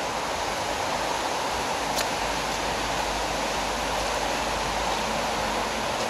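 Steady rushing outdoor noise, with a faint click about two seconds in.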